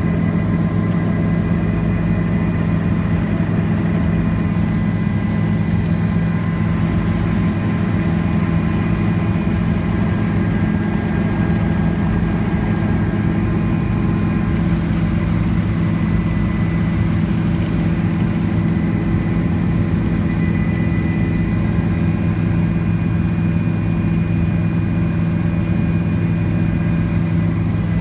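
Helicopter heard from inside the cabin in flight: a steady low drone of rotor and engine, with a few faint, steady higher tones over it.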